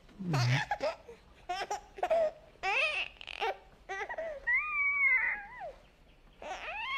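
A baby crying and babbling in a series of short, high-pitched cries with sliding pitch, broken by brief pauses.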